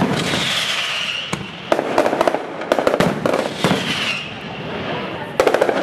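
Mascletà firecrackers going off in rapid volleys of sharp bangs, in several clusters over a continuous crackle. A whistling tone falls in pitch twice, early on and about four seconds in.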